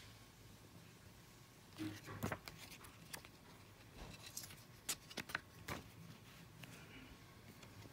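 Handling of a clear plastic CD jewel case and its paper booklet: scattered sharp clicks and light rustles, in a cluster about two seconds in and again around five to six seconds in.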